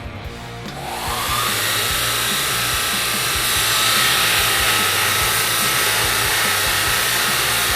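Kalamazoo BG448 belt grinder, 3 hp motor driving a 4x48 inch abrasive belt, starting up about a second in with a rising whine, then running at speed with a loud, steady rushing whine.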